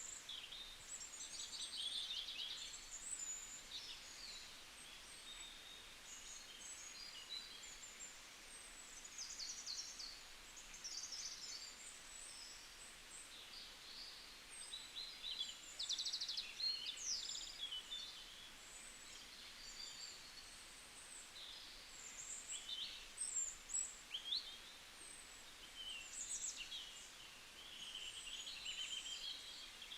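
Several songbirds calling and singing at once, a busy overlapping mix of short high chirps, quick trills and whistled notes, over a faint steady hiss.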